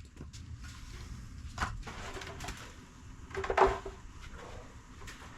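Firewood being split into small pieces for a wood stove: two sharp knocks, about one and a half seconds in and the louder one about three and a half seconds in, the second with a short pitched creak, over a low steady rumble.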